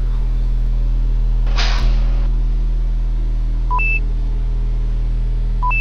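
Sci-fi spaceship cockpit ambience: a steady electronic hum. A short whoosh comes about a second and a half in. Brief two-note computer blips, a low note then a high one, sound twice near the end.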